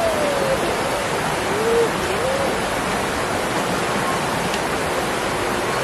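Steady rush of river water. Over the first two and a half seconds a wavering pitched sound rises and falls above it.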